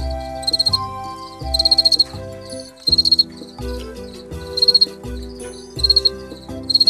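Fall field crickets (Gryllus pennsylvanicus) chirping: short, high, pulsed chirps about once a second. Background music with sustained chords and bass notes plays underneath.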